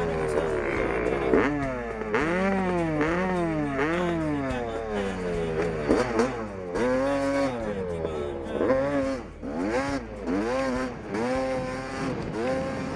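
1988 Yamaha YZ250 single-cylinder two-stroke dirt bike engine being revved in repeated throttle blips. The pitch rises and falls about twice a second at first, then holds a little longer on some revs.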